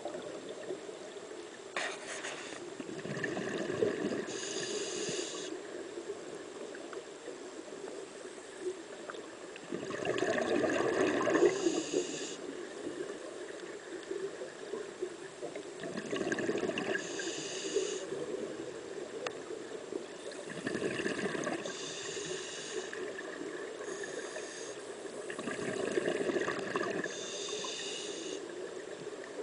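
Scuba diver breathing through a regulator underwater: a hiss on each inhale and a rush of bubbling exhaust on each exhale. The cycle repeats about five times, one breath every five to six seconds.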